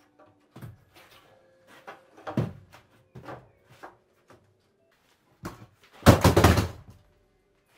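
Scattered wooden knocks and thuds from boards being handled against a pallet-wood wall, then a louder rattling clatter lasting under a second, about six seconds in, as a cordless power tool is picked up off the floor.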